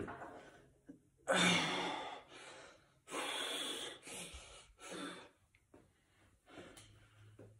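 A man breathing hard in about five separate bursts, the breaths of effort while tensing and flexing his muscles.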